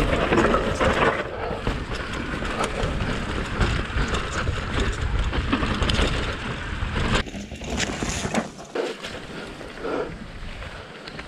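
Mountain bike ridden over rough, muddy trail, heard from an action camera mounted on the rider or bike: wind on the microphone, tyre noise and a constant rattle and knocking of the bike over the ground. It eases off about seven seconds in, leaving quieter scattered knocks.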